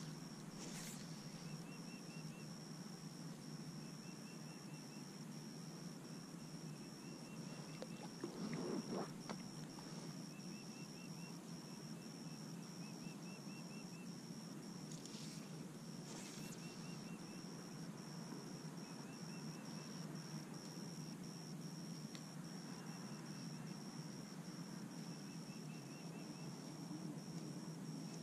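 Faint outdoor ambience on calm open water: a steady low hush with a thin, steady high whine over it. Short trains of quick, small chirps repeat every couple of seconds. A brief louder rustling noise comes about eight to nine seconds in.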